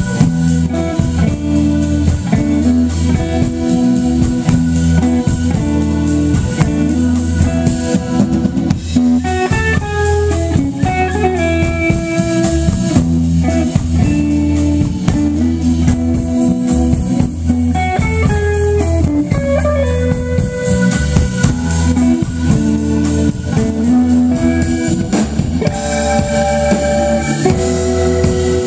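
A live band playing amplified music through a PA: an electric guitar over a drum kit, with a keyboard.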